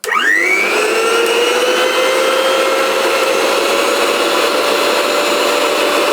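Electric mixer grinder's 2000-watt copper-wound motor switched on, its whine rising quickly in pitch over about the first second as it spins up, then running steadily at high speed.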